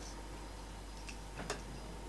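Two faint ticks about a second in, the second a little louder, as a steel fishing hook and monofilament line are handled while the hook is threaded onto the line. A low steady hum underneath.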